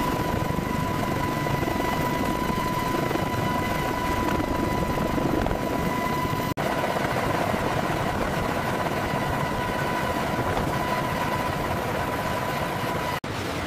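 Helicopter running with its rotor and engine noise steady throughout, and a steady high whine over it. The sound cuts out twice, very briefly: about six and a half seconds in and again near the end.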